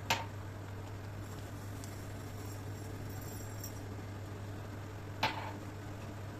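Two sharp, short clinks of kitchenware, one at the very start and one about five seconds later, each ringing briefly. A steady low hum and hiss run underneath.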